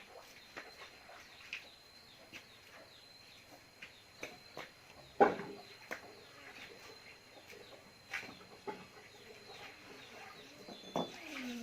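Faint scattered clicks and taps of hand work, with one sharper knock about five seconds in, over faint bird calls.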